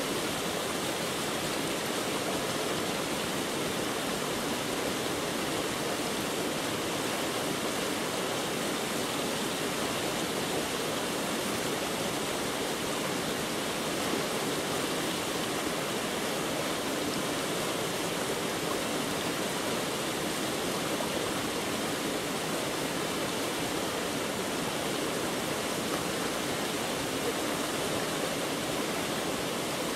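Continuous, even rushing noise that holds one level throughout, with no breaks or changes.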